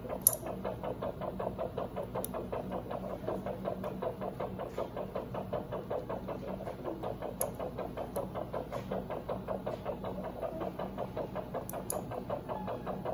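Rapid, even pulsing of about five beats a second, the sound a Doppler heart monitor makes when it tracks an anaesthetised hamster's heartbeat, over a low equipment hum. A few light metallic clicks of surgical instruments come now and then, the sharpest just after the start.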